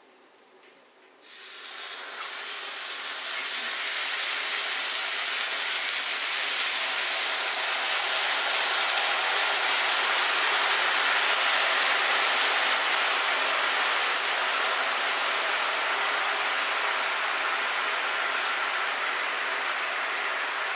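Chocolate sauce sizzling and bubbling on a preheated cast-iron sizzler plate: it starts suddenly about a second in as the sauce hits the hot iron, builds over a few seconds and holds as a steady, loud sizzle.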